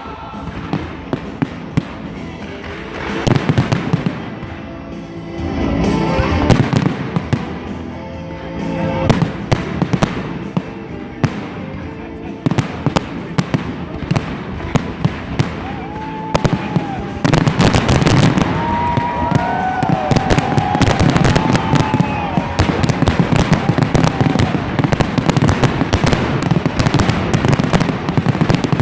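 Fireworks display: a steady run of bangs and crackling with music playing underneath. About two-thirds of the way through the barrage grows denser and louder, and a few whistling glides rise and fall through it.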